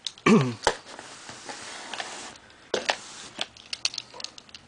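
Cardboard shipping box being handled and turned: a brief squeak and knocks, then a rough sliding scrape of cardboard lasting about a second and a half. After that come a knock and a run of small clicks and taps as a blade cutter is set against the box's taped seam.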